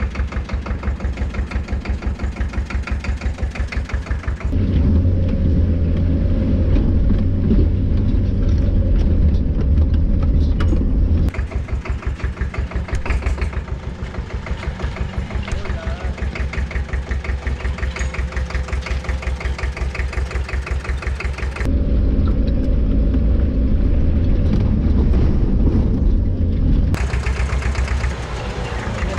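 Off-road 4x4's engine running at low revs with an even throb. Twice it jumps abruptly to a louder, deeper sound for several seconds, then drops back.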